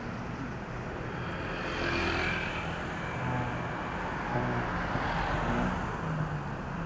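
Road traffic going by close at hand, cars and motorbikes, in a steady wash of noise that swells as vehicles pass about two and five seconds in.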